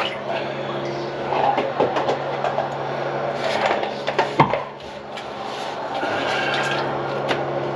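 Scattered knocks and clatter of objects being handled during work on a plugged kitchen sink drain, the sharpest knock a little past the middle, over a steady low hum.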